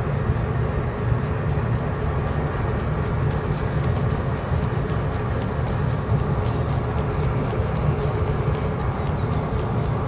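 Handheld rotary tool spinning a bristle disc against a silver and copper pendant, running steadily with a low hum and a fine high scratching as the disc scrubs off the dark liver-of-sulfur patina to bring the raised areas back to bare metal.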